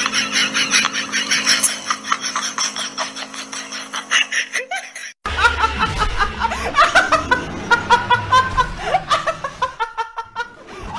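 Quick, high-pitched laughing sounds over a steady hum. About five seconds in, a sudden cut to a woman laughing loudly over a low bass beat.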